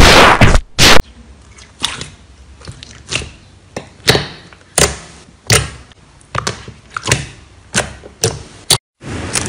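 Slime being squeezed and poked by hand, giving loud crackling for about the first second, then a dozen or so sharp clicky pops, roughly one every half to two-thirds of a second.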